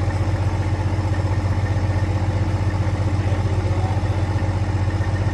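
Semi truck's diesel engine idling steadily, a loud, even low rumble with a fast regular pulse.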